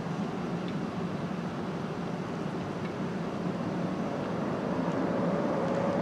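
Steady low rumble of a vehicle, slowly growing louder, with a faint rising whine in the last couple of seconds.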